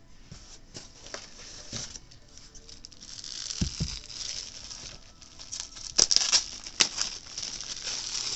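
Clear plastic sleeve crinkling and rustling as it is slid off a bolt of quilting fabric, with a low thump about three and a half seconds in and two sharp crackles about six and seven seconds in.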